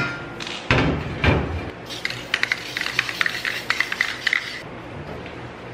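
Plasma-cut steel sign plate knocked twice against the side of a metal cabinet, then a quick run of light metallic clicks and rattles, about five a second, for some two and a half seconds as it is fixed in place.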